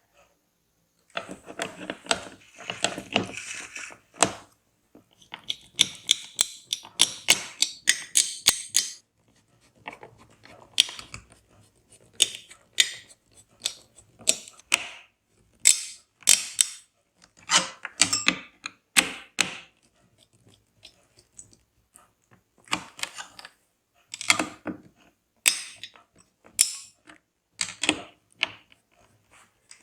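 PC parts and their packaging handled by hand during a build: irregular rustling and crinkling with sharp clicks and light knocks.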